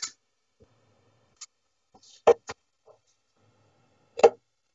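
Steel-tip darts striking a Winmau Blade 5 bristle dartboard: two sharp thuds about two seconds apart, the first followed closely by a lighter click.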